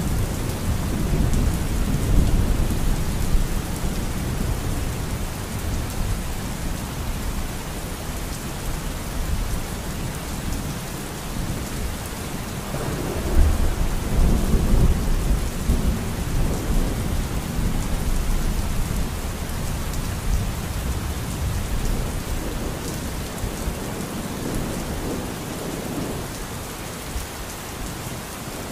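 Steady rain with low rolls of thunder that swell and fade, the biggest rumble about halfway through.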